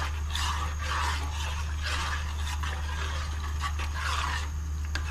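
A metal spoon stirring rice in liquid in an aluminium cooking pot, scraping and sloshing against the pot in repeated strokes about twice a second, over a steady low hum.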